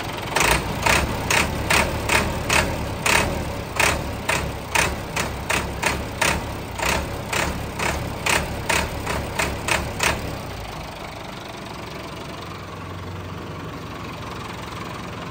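Massey Ferguson 385 tractor's four-cylinder diesel engine running, its throttle worked by hand at the fuel injection pump. Sharp, regular knocks come about twice a second for around ten seconds, then the knocks stop and a quieter steady running sound remains.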